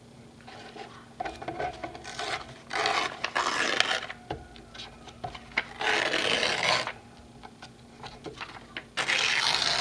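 Paper and thin plastic rustling and rubbing under hands as sheets and a flimsy plastic lace strip are smoothed and slid across the table, in several bursts.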